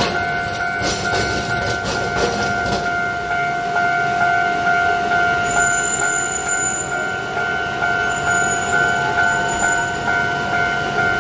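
Japanese level-crossing warning alarm ringing in a quick, even repeat of two held tones. In the first few seconds, train wheels knock over rail joints several times.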